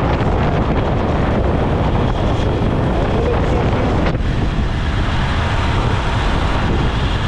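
Wind rushing over a helmet-mounted action camera's microphone while riding a motorcycle, with the engine running underneath. The rush is steady, easing briefly about four seconds in.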